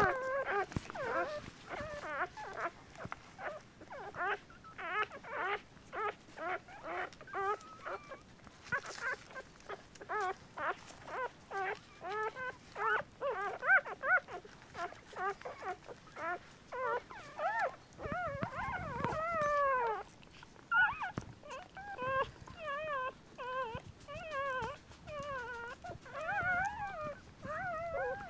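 Newborn puppies crying: a steady string of short, high, wavering squeals and whimpers, about two a second, with a longer wavering cry about two-thirds of the way through.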